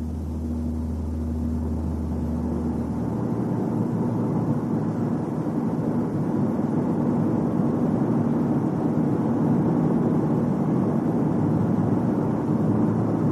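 Car running on a road test, its driving noise growing steadily louder as it gathers speed, with a steady low hum underneath. This is a test drive for a booming drone that sets in at about 80 km/h and peaks at 90 km/h.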